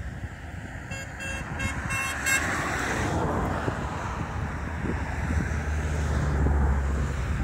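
Wind rumbling on the microphone, growing heavier in the second half. About a second in there is a quick run of about six short, pitched toots.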